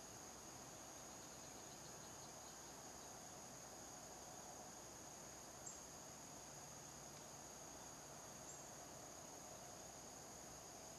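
Faint, steady insect chorus: a continuous high-pitched trill that never breaks. A brief tick sounds about halfway through and a softer one a few seconds later.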